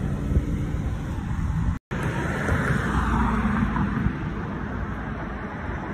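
Street background noise: a steady rumble of traffic, swelling for a couple of seconds as a vehicle goes by. The sound cuts out for an instant just under two seconds in.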